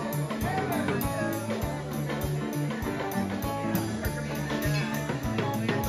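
Background music: guitar over a bass line with a steady drum beat.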